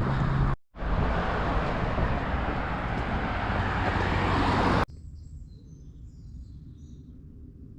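Steady loud outdoor noise, then an abrupt cut about five seconds in to a much quieter outdoor background with a few faint bird chirps.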